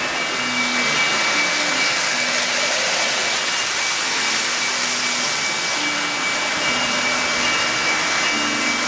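Lionel Santa Fe 'Super Chief' O-gauge passenger train running on three-rail track: a steady, loud rolling roar of the wheels with a faint motor whine.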